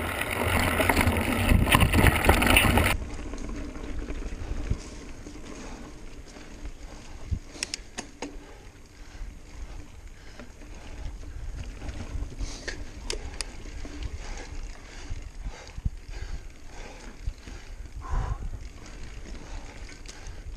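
Mountain bike riding down a rocky forest trail, heard from a camera on the bike: wind rushing over the microphone for the first three seconds, then it drops off suddenly to quieter tyre noise and the bike rattling over the ground, with a few sharp clicks and knocks.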